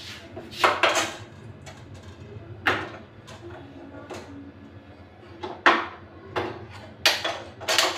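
Gas stove burner being lit under a pot of noodles: a string of sharp igniter clicks, about eight of them at uneven intervals, some loud, over a faint steady hum.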